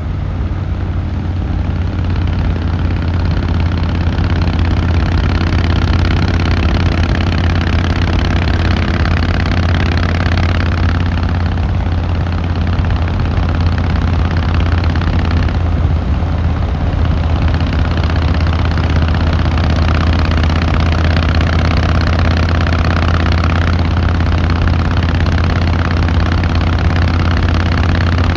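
Harley-Davidson Fat Boy Lo's air-cooled V-twin engine and exhaust running at a steady, unchanging pace, with a deep low note that holds level throughout.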